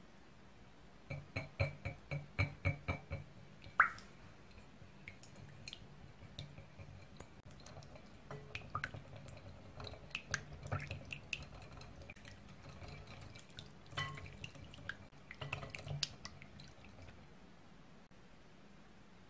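Wire whisk beating egg yolks, milk and oil in a glass mixing bowl, its wires clinking against the glass. It starts with a quick, even run of clinks, about five a second, has one sharper knock near four seconds, then goes on with irregular clinks and wet stirring until near the end.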